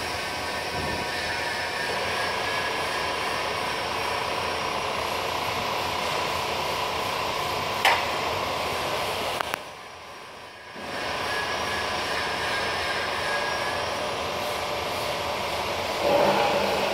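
Metal-cutting band saw running with a steady hum and whine. There is a sharp click about eight seconds in. The machine noise drops away for about a second near the middle, then builds back up, and a knock near the end comes from the phone being handled.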